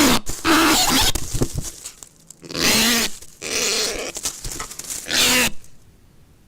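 A bird in a nest burrow giving a run of loud, harsh, nasal calls, about five in a row, with the last ending about five and a half seconds in.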